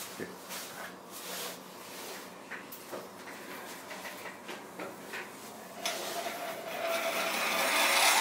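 Scattered light clicks and knocks as the cylinder head and tool are handled on the bench. About six seconds in, a flexible-shaft rotary grinder starts grinding and smoothing the combustion chamber of a Honda CRF450 cylinder head, a hissing grind with a faint steady whine that grows louder.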